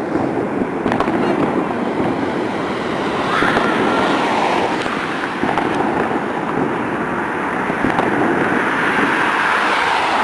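Firecrackers and fireworks going off in a dense, continuous crackling barrage, with a few sharper bangs in it.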